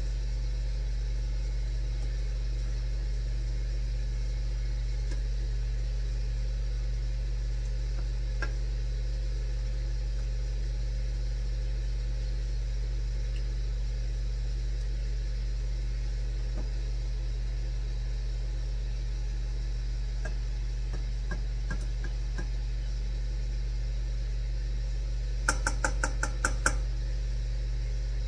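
Steady low hum of a running kitchen appliance. Near the end comes a quick run of about eight sharp clicks in just over a second.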